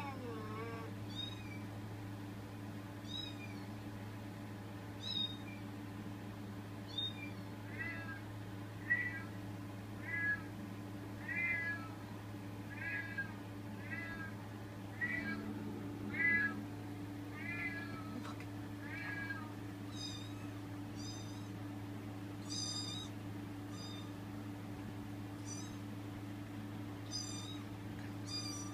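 Recorded cat meows from a sound-effect video played through a device's speaker: a series of short meows in different voices, high-pitched ones every couple of seconds at first, then a quicker run of lower meows, then high ones again near the end. A steady low hum lies underneath.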